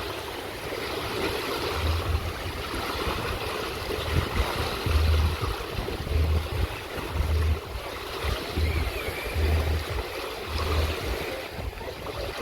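Wind buffeting the microphone in irregular low thumps, about one a second, over a steady rushing noise.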